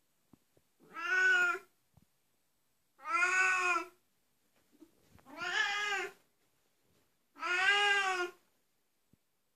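An Oriental Shorthair cat meowing loudly four times, about every two seconds. Each meow is long and drawn out, rising and then falling in pitch.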